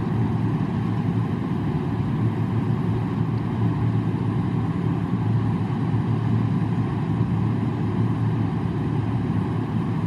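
Steady low rumble of a running vehicle engine, even in level, with no rises or breaks.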